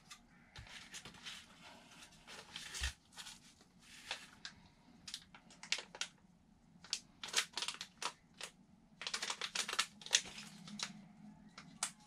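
Small stapled anti-static plastic bag crinkling and rustling in the hands, in short irregular crackles that come thicker in the second half.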